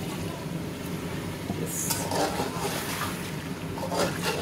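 Water poured into a pot of frying chicken masala, hissing as it goes in. From about two seconds in, a slotted metal spatula stirs and scrapes against the aluminium pot, with a clack near the end.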